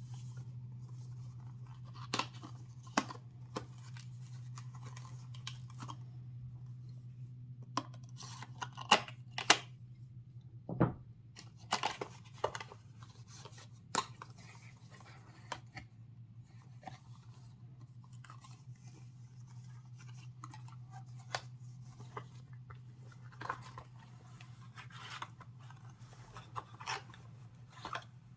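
Hands unboxing a trading-card starter deck: packaging and cards being handled, with scattered clicks, rustles and tearing sounds over a steady low hum.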